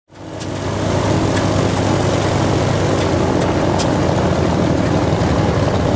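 A loud engine running steadily at speed, fading in over the first second, with a few faint clicks over it.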